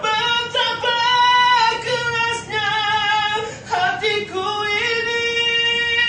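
A man singing a nasyid live as a solo voice, a wordless line of long held high notes that step and slide between pitches, dipping lower about four seconds in.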